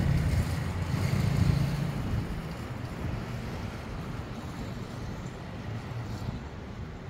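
Road traffic at a busy junction: a vehicle's engine is loud for about the first two seconds, then fades into steady traffic noise.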